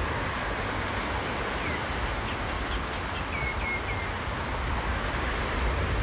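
Small waves washing onto a pebbly beach, a steady rush of surf. A bird chirps a few short times, high-pitched, around the middle.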